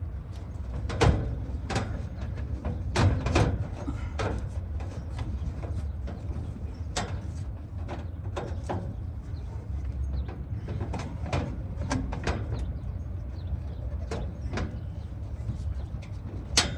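Irregular sharp clicks and knocks of hand work on metal hardware, with nuts and washers being fitted and tightened on an electrical disconnect box. A steady low rumble runs underneath.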